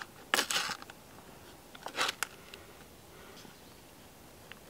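A sandwich's plastic wrapping crinkling as it is pulled open by hand, in two short bursts about half a second in and around two seconds in, with a few small clicks.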